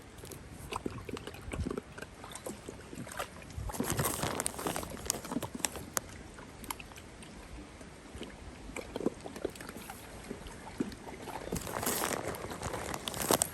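Water sloshing and splashing as a dog swims, with scattered small clicks and two louder rushes of noise, about four seconds in and again near the end.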